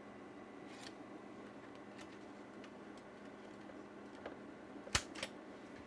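A 3.5-inch floppy disk being pulled from one drive of an HP 9121D dual floppy unit and pushed into the other: a few faint plastic clicks, then a sharp double click about five seconds in as the disk latches into the drive.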